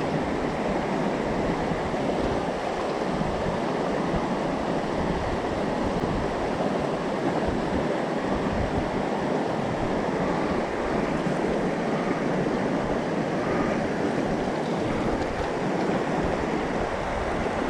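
Mountain stream water rushing in a steady, unbroken wash.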